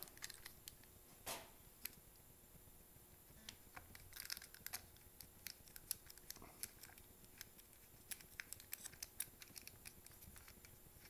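Faint scattered clicks and light scraping of a small carburetor, its plastic air-filter base and mounting bolts being handled and pressed into place against a trimmer engine, with one slightly louder click about a second in.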